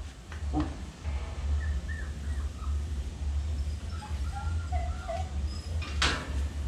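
A Phu Quoc Ridgeback puppy, held up by the scruff for a vaccine injection, whining faintly in short wavering calls, then giving one short loud cry about six seconds in. A steady low hum runs underneath.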